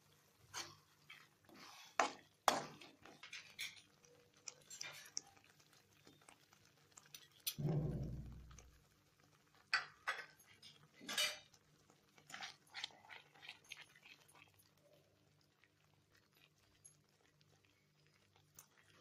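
Metal spoon scraping and clinking against a steel kadai while stirring thick masala gravy, in irregular strokes. A louder, low muffled sound lasting about a second comes near the middle.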